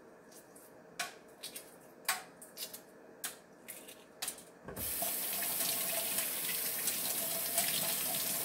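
A few sharp clicks and crackles of eggshell as a hard-boiled egg is peeled by hand; then, just past halfway, a kitchen faucet comes on and water runs steadily into a stainless steel sink as the egg is rinsed under it.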